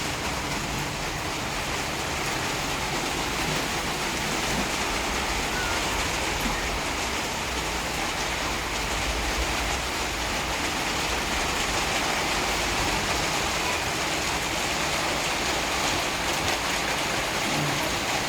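Hail and rain falling heavily, a steady dense patter that holds an even level throughout.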